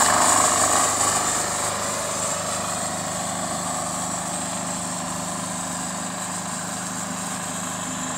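Engine running steadily with a low hum. A louder hiss over it fades away during the first two seconds.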